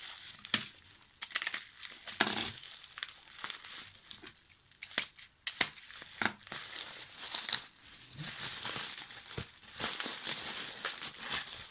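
Packaging being handled and unwrapped by hand: irregular crinkling and rustling with scattered sharp crackles.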